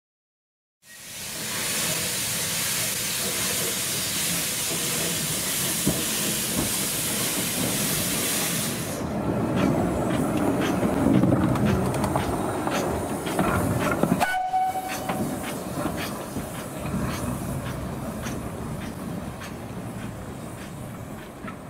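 Small 0-4-0 saddle-tank steam locomotive: a loud, steady hiss of steam for the first eight seconds or so, then the engine working along the track with knocks and clanks, and a short whistle blast about halfway through.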